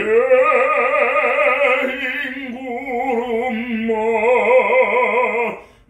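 A man singing a Korean art song in classical bel canto style, holding long notes with a wide vibrato over a few note changes. The voice stops shortly before the end.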